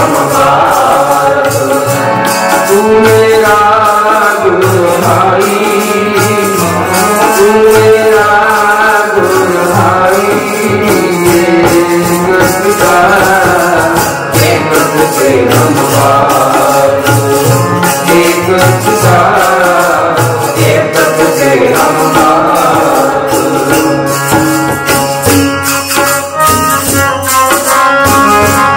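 Sikh kirtan: men singing a hymn with harmonium accompaniment, over a steady percussion beat.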